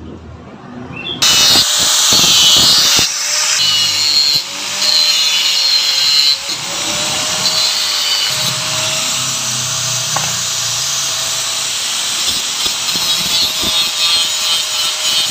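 Angle grinder cutting into the steel pulser lobe on a Yamaha Mio's magneto flywheel rotor, with a steady motor whine under the grinding. The lobe is being trimmed to change the ignition timing to suit a Shogun CDI. The grinder starts about a second in and stops abruptly at the end.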